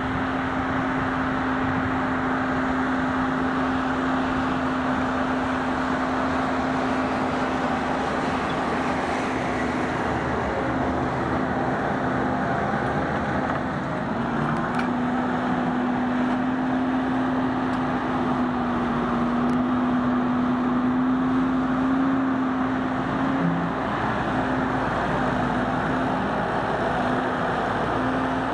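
Fendt 716 tractor engine running steadily under load while pulling a four-furrow plough. The engine note rises a little about halfway through and eases back near the end.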